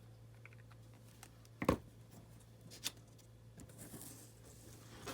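Paper and craft supplies being handled on a work table: a sharp knock about a second and a half in, a smaller click about a second later, and soft paper rustling, over a low steady hum.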